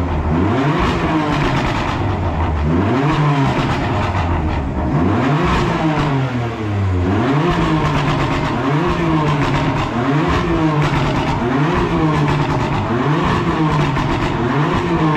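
Sports car engine being revved repeatedly while stationary, its pitch climbing and dropping back about once every one to two seconds.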